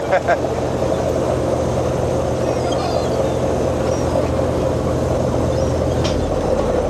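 Steady low hum of a purse seiner's engines and deck machinery under a noisy wash, with a few faint high gull calls about three seconds in.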